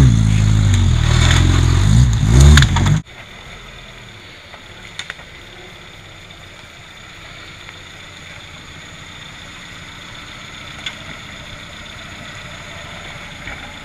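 Suzuki Samurai off-roader's engine revving hard and unevenly at close range, cut off abruptly about three seconds in. After that, a much quieter steady engine sound from a Samurai crawling down a muddy forest slope, with a couple of faint clicks.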